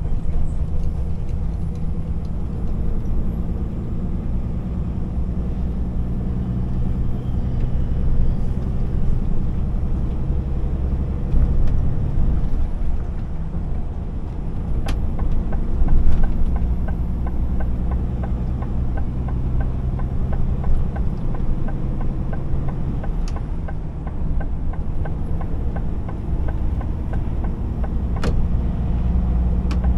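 Steady low rumble of a DAF XF 480 lorry's six-cylinder diesel engine and tyre noise, heard from inside the cab at motorway speed. The engine note shifts in pitch a few times, and there are a few sharp single clicks.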